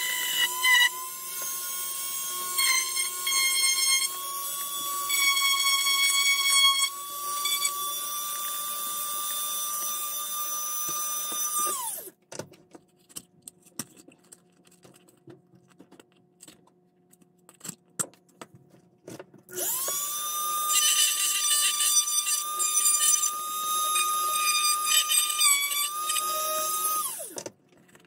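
Dremel rotary tool on a flexible shaft drilling a hole in a dome-shaped stand base: a steady high motor whine for about twelve seconds that winds down, then after a short pause with light clicks and handling it spins up again for about eight seconds and winds down near the end.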